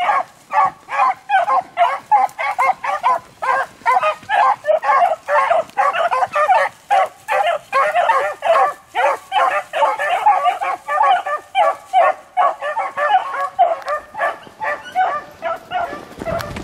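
Several beagles baying on the track of a rabbit in full chase: rapid, overlapping barks and bawls, several a second without a break, thinning a little near the end.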